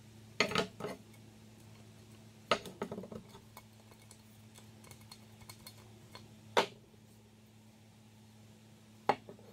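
An old frying pan and its detached handle being handled on a wooden table: a few separate knocks and clatters as they are picked up and set down.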